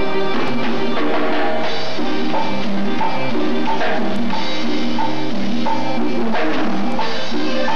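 A live band playing Latin dance music: a drum kit with cymbals keeps a steady beat under sustained chords from pitched instruments.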